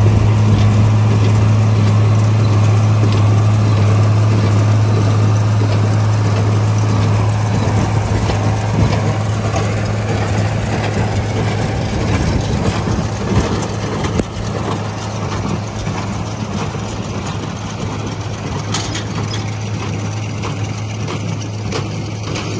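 Tractor engine running steadily under load while baling straw, a constant low hum with a dense mechanical rattle over it. It gets a little quieter about 14 seconds in.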